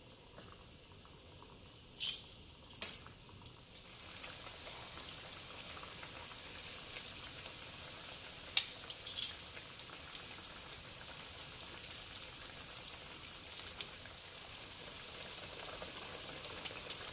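Flour-coated chicken pieces frying in hot oil in a skillet. The oil starts sizzling about four seconds in and grows slowly louder as more pieces go in, with a few sharp clicks and pops along the way.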